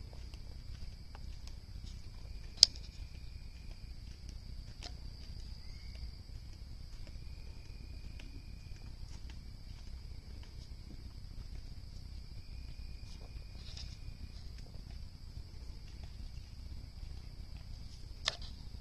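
Wood bonfire crackling in a steel fire ring, with scattered sharp pops from the burning logs, the loudest about two and a half seconds in and another strong one near the end. Behind it a steady high-pitched insect chorus runs throughout, with a lower insect trill coming and going.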